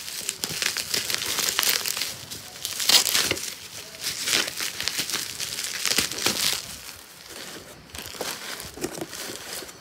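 Bubble wrap crinkling and crackling as it is pulled off a boxed figure by hand, thinning out near the end once the box is free.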